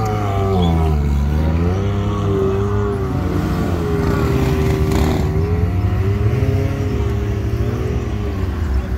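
Side-by-side UTV engine revving under load on a sand dune, its pitch rising and falling with the throttle. About five seconds in there is a brief rush of noise.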